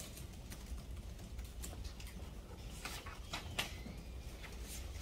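Scattered light clicks and taps, irregular and a few per second, over a low steady room hum.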